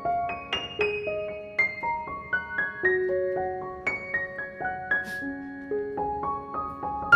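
Background piano music: a gentle melody of single notes stepping up and down.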